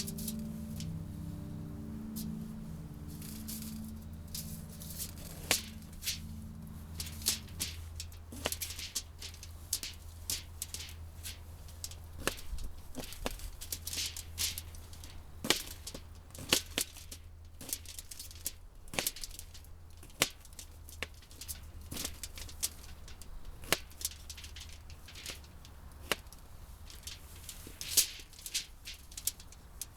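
Background music with mallet tones fades out over the first several seconds. It leaves a low steady hum and many irregular sharp clicks and crackles.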